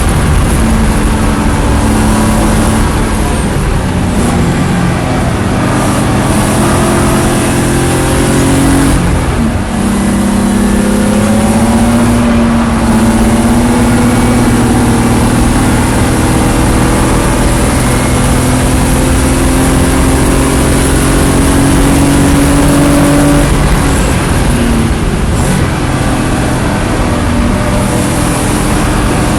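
Race car engine running hard on track, its revs falling sharply about nine seconds in, then climbing slowly for about fourteen seconds before falling again near twenty-five seconds, as it brakes and accelerates through corners. Loud throughout, with a steady rush of wind and road noise.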